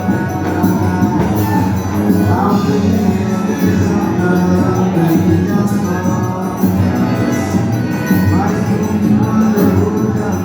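Upbeat band music with a steady dance beat.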